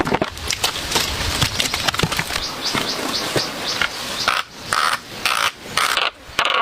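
Wood being scraped or rasped by hand in steady back-and-forth strokes, about two a second, starting about four seconds in, after a stretch of irregular rustling and clicking.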